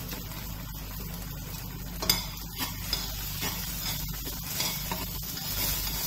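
A spatula knocks once against a nonstick frying pan about two seconds in, then stirs and scrapes through simmering moong dal payasam, with a steady low sizzle from the pan.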